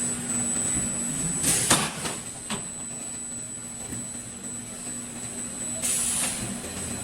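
Roll forming machine for steel C/Z-profiles running with a steady hum, a loud clank about a second and a half in, a lighter knock a second later, and a short hiss near the end.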